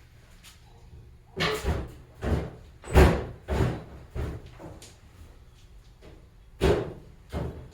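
A run of sharp knocks and bangs from rummaging through garage storage, with drawers and doors being opened and shut: about eight hits, the loudest about three seconds in.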